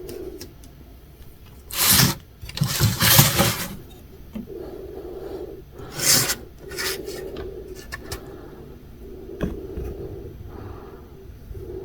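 Assembled LEGO models being handled and shifted about, rubbing and scraping in several bursts. The loudest scrapes come about two, three and six seconds in, with a few light clicks between them.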